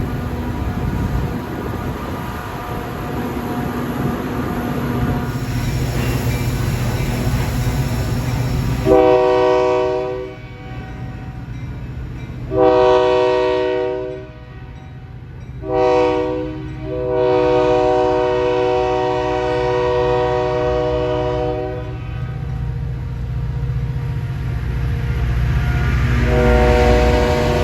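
Metra train's locomotive running with a steady rumble, then its multi-chime air horn sounds two long blasts, a short one and a long one, the standard grade-crossing signal. The horn starts sounding again near the end.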